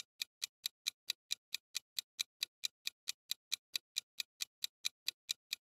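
Quiz countdown timer sound effect: a clock ticking steadily and fairly quietly, about four and a half ticks a second.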